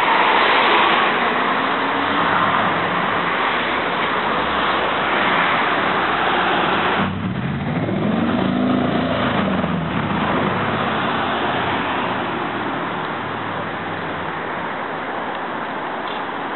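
Steady street traffic noise, with a car driving past about seven seconds in, its engine note rising and then falling as it goes by over about three seconds.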